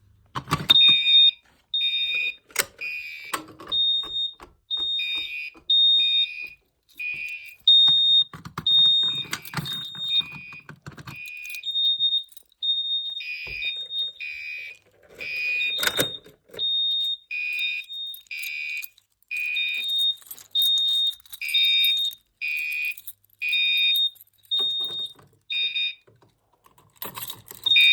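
Fire alarm horns on a small demonstration board sounding in rapid pulses, about two a second, at two shrill pitches. Mixed in are clicks and clacks of pull stations being operated, with one sharp clack about 16 seconds in.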